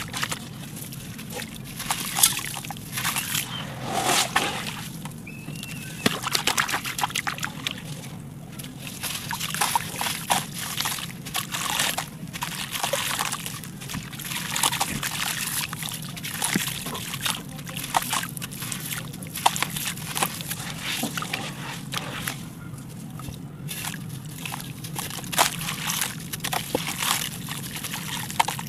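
Bare hands squeezing and kneading wet clay paste in a basin of water: wet sloshing and squishing with many small irregular crackles from the crumbling clay.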